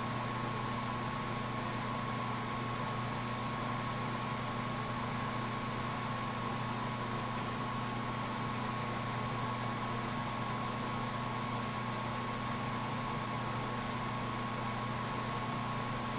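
Lampworking bench torch burning steadily: an even hiss over a low hum, with a thin steady whine.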